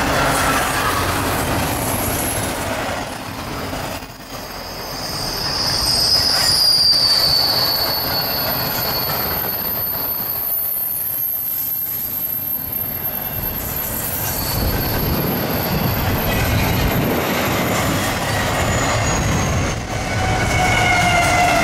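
CSX intermodal freight train's flatcars rolling past, steel wheels squealing against the rails on a curve, the high-pitched squeals coming and going over the rumble of the wheels. The low rumble grows in the last few seconds as the rear distributed-power locomotive draws near.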